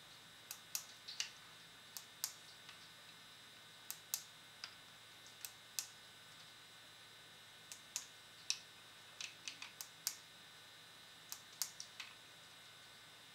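Plastic push-buttons on a handheld MegaBee writing tablet clicking as letters are keyed in: sharp single clicks and quick runs of three or four at irregular intervals, the busiest run about nine seconds in.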